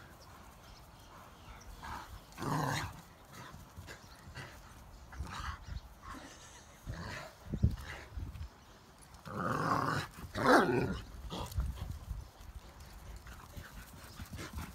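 A German shorthaired pointer and an Irish wolfhound play together, making short dog vocal sounds. One comes a few seconds in, and a louder cluster comes about two-thirds of the way through.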